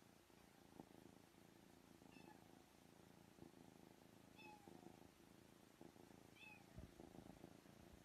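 Kitten purring faintly while stroked on the head, with three faint short high chirps about two seconds apart.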